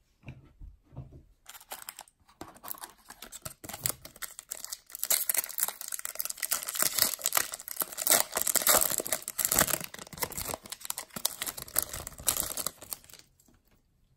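Foil wrapper of a Topps Chrome baseball card pack being torn open and crinkled by hand: a dense crackling rustle that starts about a second and a half in, is loudest in the middle, and stops shortly before the end.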